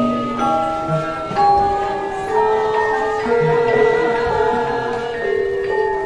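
Javanese gamelan music: metallophones ringing long, overlapping notes, with a low stroke about every two and a half seconds.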